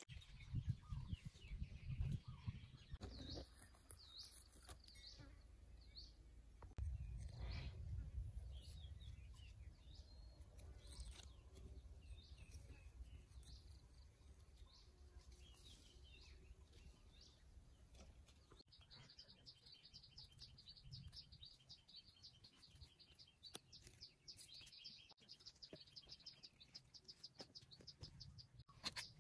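Faint bird chirping on and off, turning into a fast, even run of chirps for the last third, over a low rumble.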